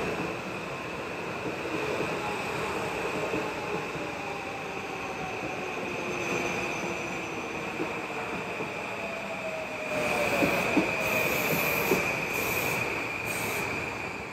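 Metro-North M8 electric multiple-unit train running past on the rails with a steady high wheel squeal and a motor whine falling in pitch as it slows. Several short high hisses come near the end.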